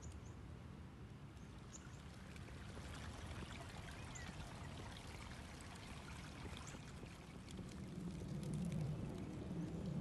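Water flowing and trickling steadily like a small stream, growing louder over the last couple of seconds.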